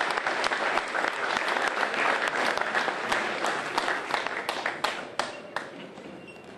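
Audience applauding, a dense patter of many hands clapping that thins out and fades away over the last couple of seconds.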